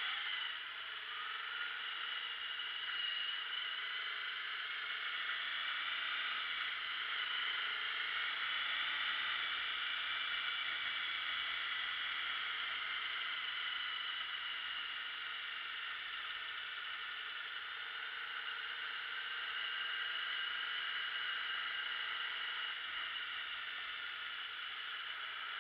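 Motorcycle riding at town speed, heard from a camera mounted on the bike: a steady mix of engine, wind and road noise, with slight slow shifts in pitch as the speed changes.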